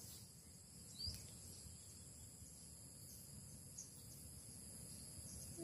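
Near silence outdoors: faint, steady high-pitched buzzing of insects in the background, with one short rising chirp about a second in.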